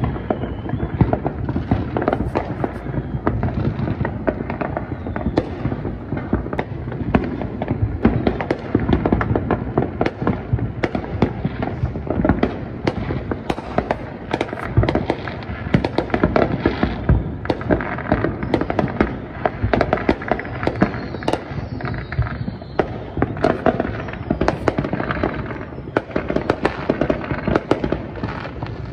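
Many consumer fireworks going off at once across a neighbourhood: a continuous mix of crackling, popping and frequent sharp bangs with no break.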